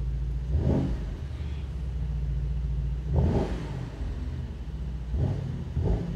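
Mercedes-AMG SL55's 4.0-litre twin-turbo V8, with an exhaust that has no particulate filter, idling and blipped four times at standstill, the last two close together, heard from inside the cabin.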